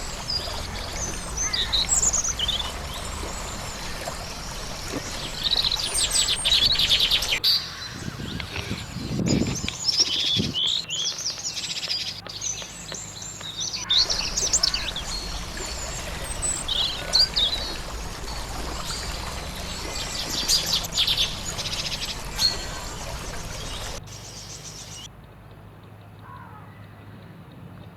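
Several birds chirping and singing, many short overlapping calls and trills over a steady low background, with a few lower calls in the middle; the birdsong grows fainter over the last few seconds.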